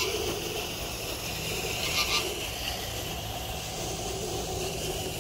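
Steady rushing of water churned up by a fountain jet in a pond, with a brief high-pitched sound about two seconds in.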